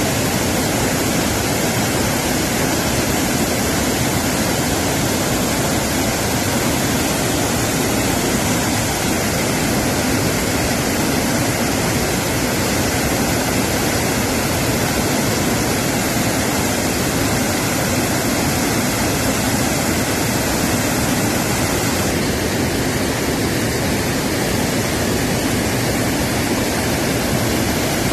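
Waterfall in heavy flood after monsoon rain: a loud, steady rush of falling water with no breaks.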